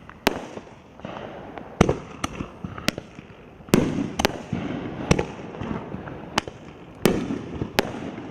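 A Roman candle firing shot after shot: about a dozen sharp pops at uneven intervals of roughly half a second to a second, over a steady hiss.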